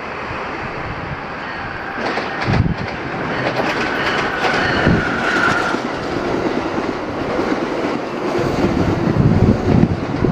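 Amtrak passenger train running through the station, its wheels clacking over the rail joints. A brief high wheel squeal comes about four to six seconds in.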